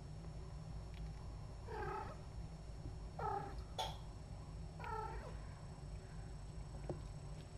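A cat meowing three times, about a second and a half apart, each call dropping in pitch, with a sharp click just after the second meow. A low steady hum runs underneath.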